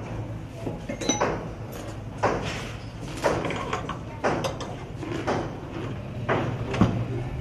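A metal padlock and steel tower bolt on a wooden door clacking and rattling as they are handled, a sharp metallic clack about once a second. A low steady hum runs underneath.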